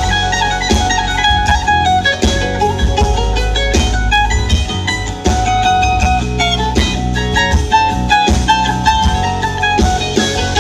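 Live band playing an instrumental break in a blues-country song: guitar lead over bass and a steady drum beat.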